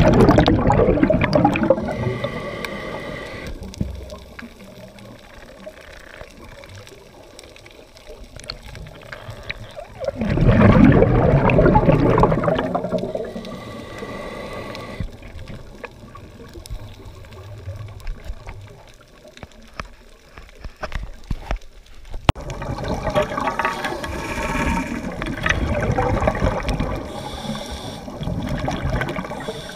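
Scuba diver breathing through a regulator underwater: three loud rushes of exhaled bubbles, each of the first two followed by a shorter hissing inhale with a faint whistle. The breaths come about every ten to twelve seconds.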